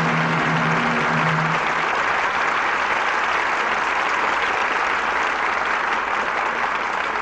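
Studio audience applauding steadily. The orchestra's last held brass chord sounds under it and ends about a second and a half in.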